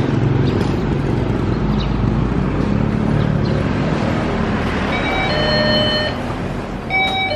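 Steady low rumble of street traffic, then a shop's electronic door chime, a two-note ding-dong, sounding twice: about five seconds in and again near the end, as the 7-Eleven's door sensor is tripped on entering.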